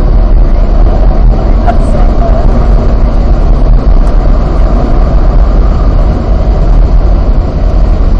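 Car engine pulling hard at track speed, heard from inside the cabin, mixed with steady road and wind noise.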